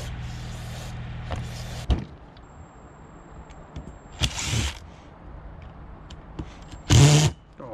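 Aerosol carburetor cleaner hissing from a spray can with a straw onto a carburetor for the first couple of seconds. Then a cordless impact driver runs in two short bursts on the carburetor's screws, about four seconds in and, louder, near the end.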